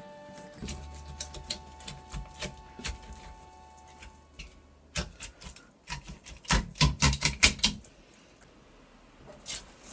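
Filleting knife clicking and ticking against the backbone and pin bones of a sea bass as it cuts along the spine, a run of sharp irregular ticks that come thickest and loudest about seven seconds in.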